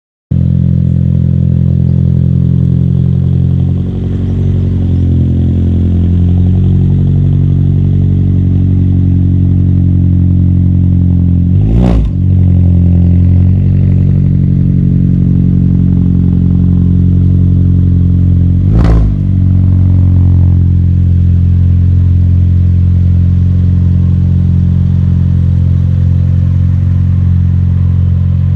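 Fiat Grande Punto Abarth's turbocharged 1.4 four-cylinder petrol engine idling steadily, loud and close. Two short sharp cracks break through it, one a little before halfway and one about two-thirds of the way in.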